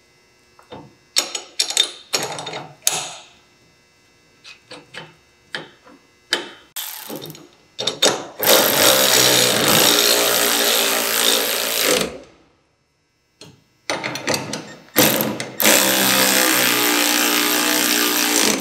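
Milwaukee cordless electric ratchet running down the bolts of a brake caliper bracket on the front spindle, in two runs of three to four seconds each: the first about midway, the second near the end. Before them come a few light metallic clinks as the bolts and hardware are handled.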